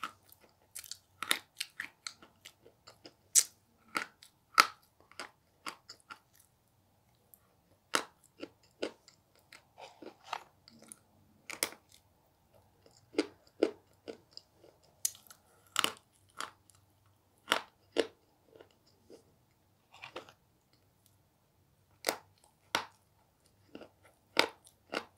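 Coloured chalk being bitten and chewed close to the microphone: sharp, irregular crunches, packed close together at first, then coming a second or two apart.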